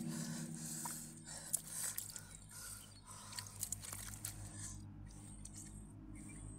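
Hands digging into wet mud in a flooded paddy-field hole: soft crunching and squelching with a few sharp clicks, over a faint low steady hum.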